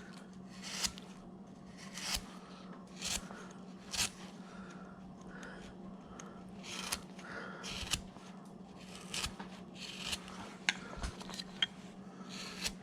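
A wide number 9 carving gouge pushed by hand through wood, making short scraping, slicing cuts about once a second at an uneven pace.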